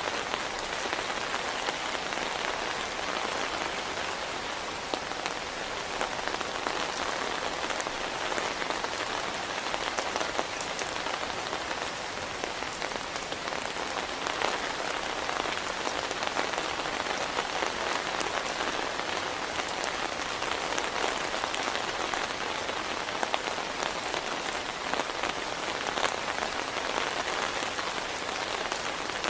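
Heavy rain falling steadily, with countless individual drops ticking on a nearby surface.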